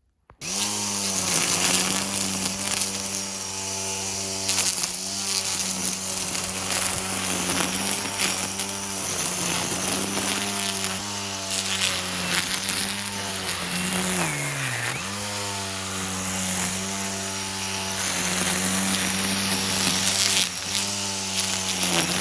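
String trimmer (weed eater) running at high speed while cutting down sweet potato vines, its pitch dipping briefly every few seconds under load and dropping sharply about fourteen seconds in before revving back up.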